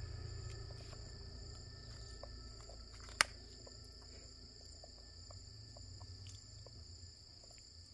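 Steady, high-pitched insect drone, with small light clicks of a spoon in a plastic cup and one sharp click about three seconds in.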